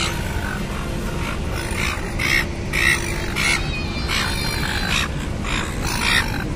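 Silver gulls giving a string of short squawks, repeated irregularly about every half second, over a steady low rumble.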